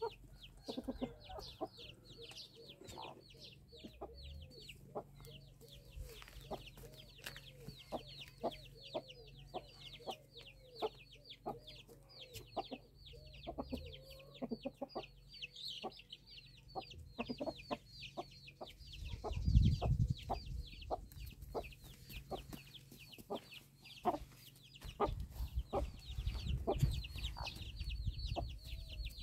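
Hens clucking softly in short low calls while chicks peep rapidly and continuously, with many sharp ticks throughout. A low rumble comes about two-thirds through and again near the end.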